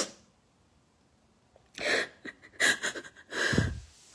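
A woman crying: after a pause of about a second and a half, three short, gasping, breathy sobs.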